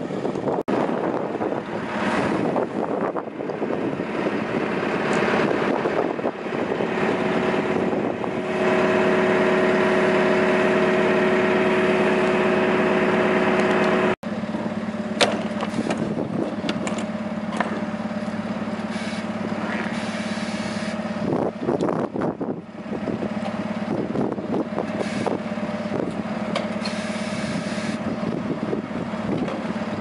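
A stationary DAF LF55 fridge truck running with a steady mechanical hum, which grows louder about nine seconds in. After a sudden cut, sharp clicks and knocks come from the rear doors' latches and locking bars as they are worked open.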